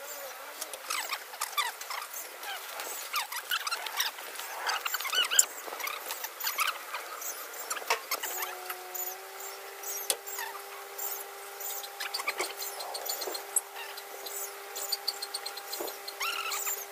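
Small birds chirping over and over in short, quick calls, with a few light clicks. About halfway through, a steady humming tone comes in and holds.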